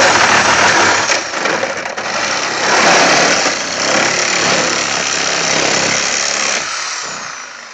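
Corded reciprocating saw cutting through the sheet-metal body of a Chevrolet Lumina sedan, finishing the cut that takes the roof off. It runs loud and steady, then winds down and stops near the end.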